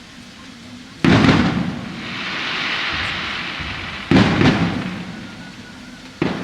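Aerial fireworks shells bursting: three sudden booms, about a second in, about four seconds in and near the end, each fading off, with a crackling hiss after the first.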